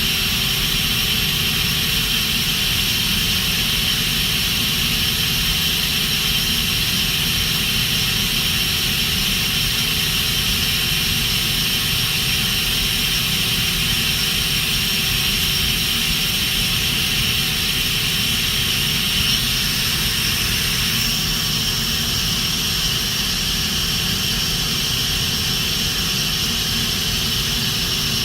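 Mori Seiki NT4300 CNC turning center running under power, a steady mechanical whir with a high-pitched whine on top. A slight change in the whine comes about two thirds of the way through.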